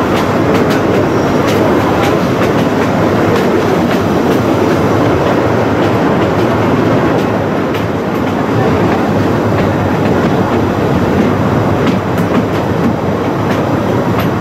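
Narrow-gauge (75 cm) passenger train running along the line, heard from an open wagon in the train: a steady loud rumble of the coaches with sharp, irregular clicks of the wheels over the rail joints.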